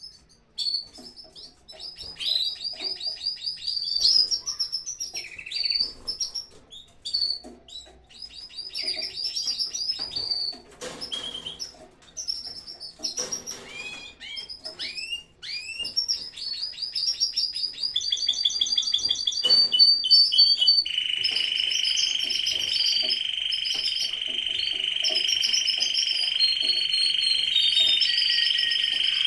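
Aviary full of canaries singing: many overlapping chirps, rapid trills and whistled phrases. About two-thirds of the way through, a steady, unbroken high trill sets in beneath the chirping and holds to the end.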